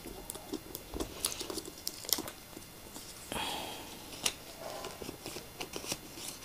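Paper and card packaging handled by hand: quiet rustling and crinkling with scattered small clicks, and a short tearing sound lasting about a second a little past the middle, as a bank card's paper packet is opened.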